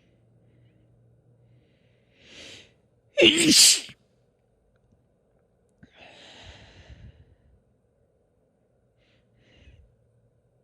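A woman sneezing once, loudly and with voice, after a short breath in. A longer breathy sound and a faint sniff-like noise follow.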